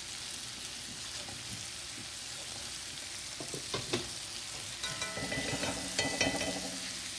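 Shrimp sizzling steadily as they fry in butter in a skillet. In the second half a knife blade turns them, with clicks and scrapes against the pan.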